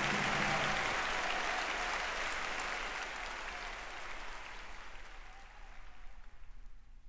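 Audience applause on a live jazz recording played from a vinyl record, fading out gradually as the track ends. The band's last held notes die away about a second in.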